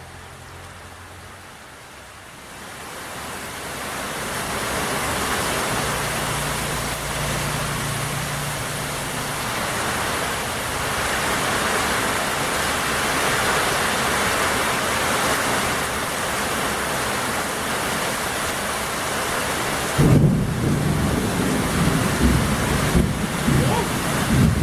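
Rain falling, swelling within the first few seconds into a steady, heavy downpour. About twenty seconds in, an uneven low rumbling joins it and becomes the loudest sound.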